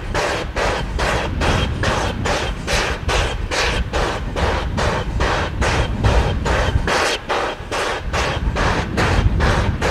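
SY-class 2-8-2 steam locomotive working under steam, its exhaust chuffing in a steady rhythm of about three beats a second over a low rumble.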